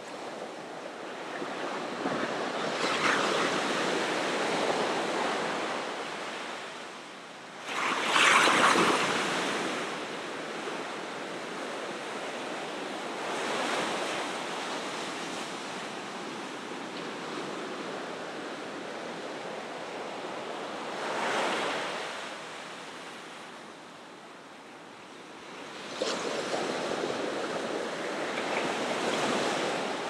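Ocean surf: waves breaking one after another onto the shore, a steady rushing wash that swells with each breaker, the loudest crash about eight seconds in.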